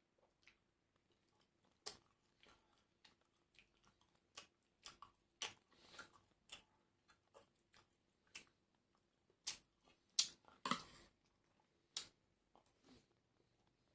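A person eating a meal of fried rice, fried chicken and emping crackers. Irregular sharp crunches and clicks of chewing come a few to the second, with a longer crackly crunch about ten seconds in.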